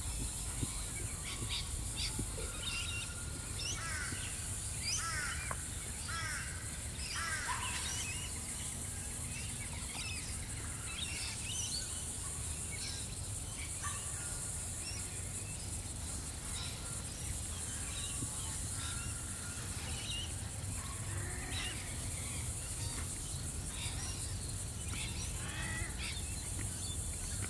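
Wild birds calling and chirping, many short whistles and quick falling notes, busiest in the first third, over a steady high-pitched hiss and a low rumble.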